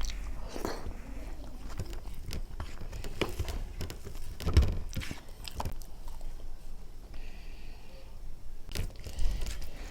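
Close-miked chewing and wet mouth sounds of someone eating mashed vegetable bharta with daal: irregular smacks and clicks, with one louder knock about halfway through.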